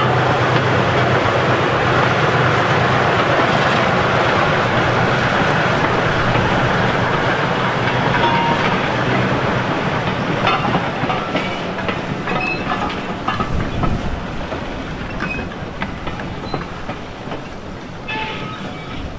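Small shunting locomotive's engine running steadily as it moves a rake of vintage carriages. From about halfway through, the carriages' wheels clank over rail joints with brief short squeals, and the sound fades as the train moves away.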